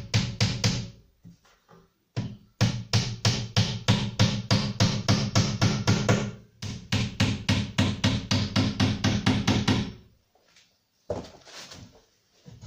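Hammer tapping pins into the glazing bead of a glazed wooden door to hold the glass in: quick light taps about four a second, in runs of several seconds with short breaks.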